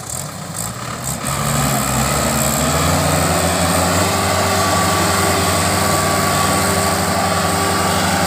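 JCB 3DX backhoe loader's diesel engine revving up about two seconds in, then holding steady at high revs as the machine works its arms.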